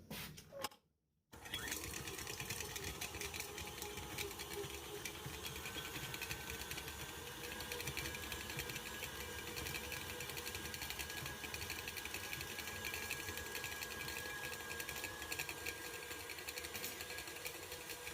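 Electric hand mixer running steadily, beating butter to soften it. It starts about a second in, after a brief silence.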